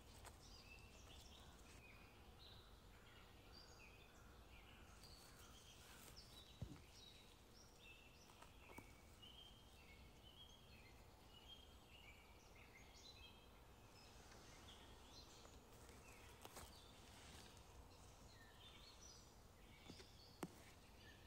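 Faint forest birdsong: many small birds giving short, high chirps throughout, over a low background hiss. Two sharp clicks, one about six and a half seconds in and one near the end.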